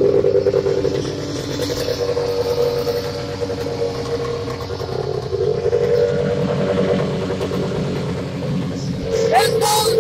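Arctic Cat Trail Cat snowmobile's two-stroke engine idling at a steady pitch, its exhaust header half open. It picks up slightly for a moment in the middle.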